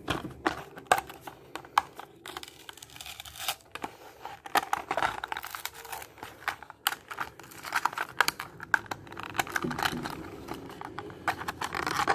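A toy car's blister pack being torn open by hand: the clear plastic blister crinkling and crackling as it is pulled from its cardboard backing card, which tears, with many irregular sharp clicks.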